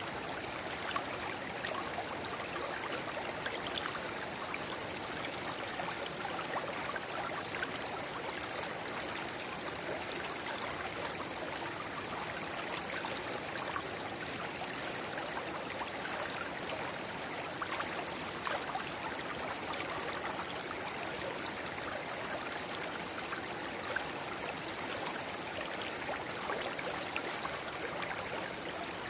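A shallow river babbling steadily, with a small spring-fed rivulet splashing and gurgling into it.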